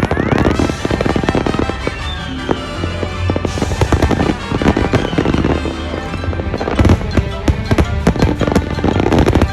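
Fireworks finale: a dense, rapid barrage of shell bursts and crackling reports, with pop music playing underneath.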